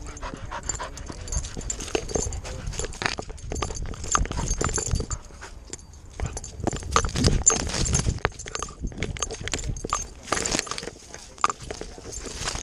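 A dog running over dry grass and mud with a camera strapped to its chest: its paws thud in an uneven rhythm and dry grass rustles against the camera, close to the microphone.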